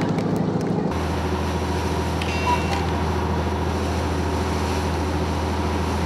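Fishing boat's engine running with a steady low drone, with wind and sea noise over it; the drone deepens about a second in.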